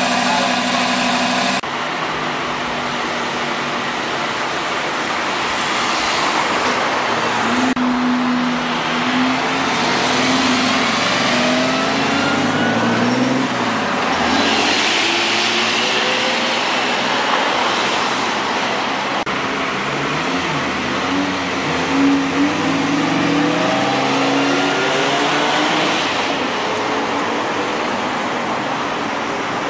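Lamborghini supercar engine running and revving, pulling away several times with the pitch rising as it accelerates.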